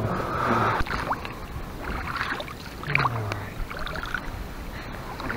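Small boat on the water: water moving against the hull, with scattered knocks and handling clicks and a short noisy rush in the first second.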